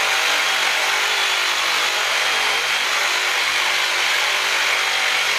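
Ryobi cordless reciprocating saw running steadily, its blade sawing through a beef marrow bone.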